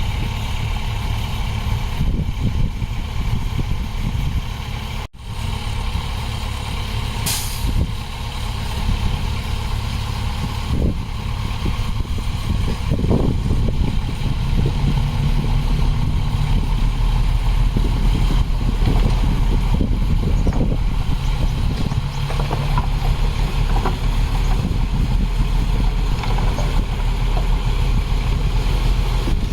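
Heavy diesel earth-moving machinery engine running steadily, with a short high hiss about seven seconds in. The sound drops out for an instant around five seconds in.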